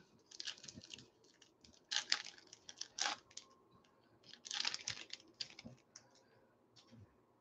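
Foil wrapper of a baseball trading card pack crinkling and tearing as it is opened by hand, then the cards being handled, in several short spells of rustling.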